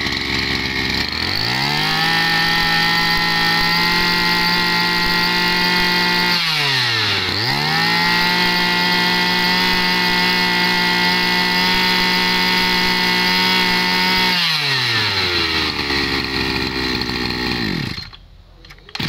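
Maruyama 26 cc two-stroke brush cutter engine idling, then revved to full throttle and held, dropping briefly to idle about six seconds in before revving high again. Near the end it falls back to idle and cuts off.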